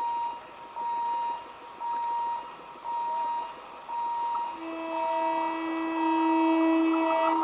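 An approaching EMU local train sounds one long, steady horn blast starting about four and a half seconds in, over a short beep repeating about once a second.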